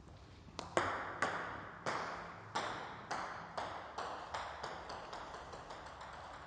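Table tennis ball bouncing on a hard surface and coming to rest: a run of sharp light pings starting about half a second in, the bounces coming quicker and fainter until they die away near the end.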